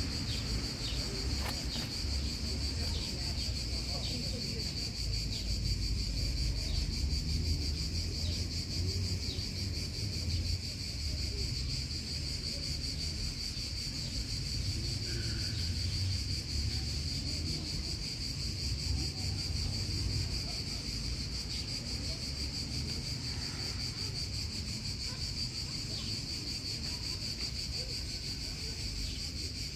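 Steady, high-pitched chorus of insects droning without a break, over a low rumble of wind on the microphone.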